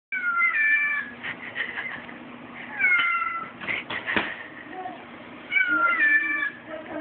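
Recorded cat meows played from a phone held up to a dog: three falling meows a few seconds apart, with faint rustling and knocks between.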